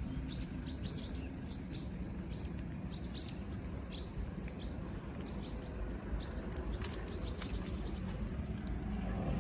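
Small birds chirping: many short, high chirps that sweep downward, coming several times a second in loose runs, over a steady low background rumble.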